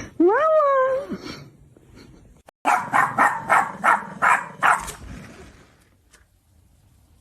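A dog vocalising: one drawn-out whine that rises and then falls in pitch, then, after a short pause, a quick run of about eight barks.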